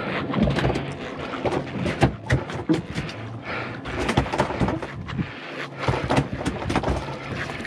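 A conventional fishing reel being cranked hard against a heavy fish: irregular clicks and knocks from the reel and rod handling over a steady hiss of wind and water.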